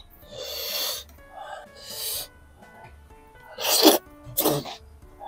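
Eating octopus by hand: a few short, breathy slurps and mouth noises, over quiet background music.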